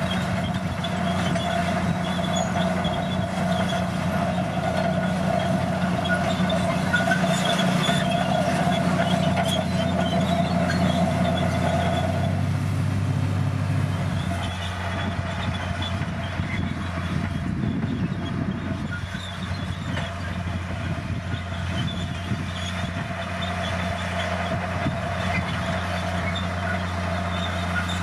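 A Komatsu crawler bulldozer working: its diesel engine runs under load while the steel tracks clatter and squeak. The engine note eases and the sound gets a little quieter about halfway through.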